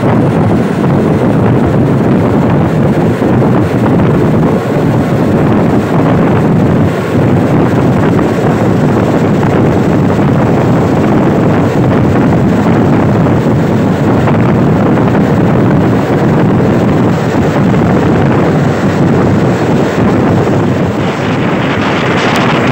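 Moving passenger train heard from an open carriage window: a steady rush of wind on the microphone over the rumble of the carriages on the track. The rush turns hissier near the end.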